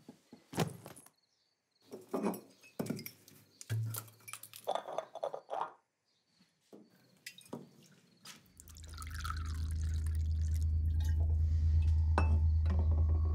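Scattered clinks and knocks of glassware being handled and set down, with liquid poured into a glass. About eight seconds in, a low, steady drone fades in and becomes the loudest sound.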